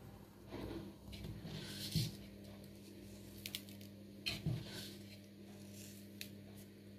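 Salt being sprinkled onto grated carrot and potato in a mixing bowl: soft rustling with a few light clicks, over a low steady hum.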